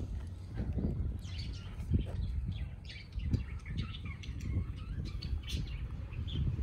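Small birds chirping repeatedly in quick, short calls, over a low rumble with a few dull thumps.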